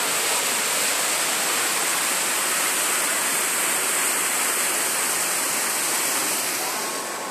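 Muddy floodwater rushing and churning in a fast torrent, a steady loud rush of water that fades near the end.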